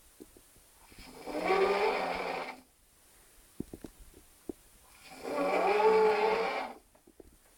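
A man snoring in a drunken sleep after passing out: two long snores about four seconds apart, each lasting under two seconds, with faint clicks in the pause between them.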